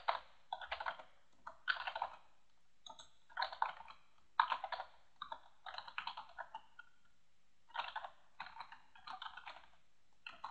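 Typing on a computer keyboard, in quick runs of keystrokes separated by short pauses.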